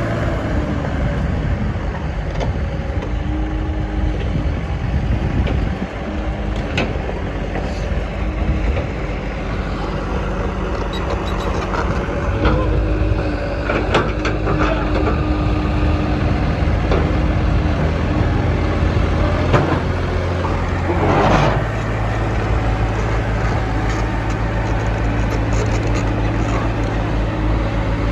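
Heavy diesel engine machinery running steadily, with the engine pitch shifting as the revs change, most clearly about 21 seconds in. Occasional sharp metallic clanks come through, typical of a backhoe bucket and soil being loaded.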